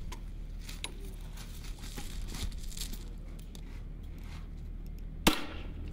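Light rustling and small clicks of gear being handled over a steady low wind rumble on the microphone, then a single sharp gunshot about five seconds in.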